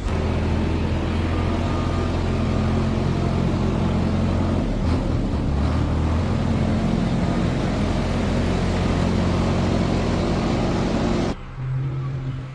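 A machine running steadily with a constant low hum, cutting off suddenly near the end, leaving a quieter, lower hum.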